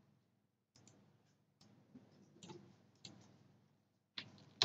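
A handful of faint, irregular clicks from a computer mouse, with near silence between them.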